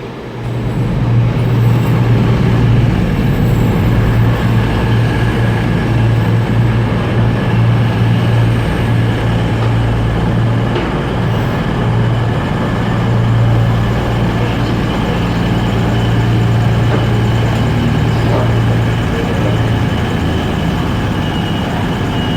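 Passenger train running: a steady low drone over a broad rumbling noise, which swells sharply about a second in and then holds.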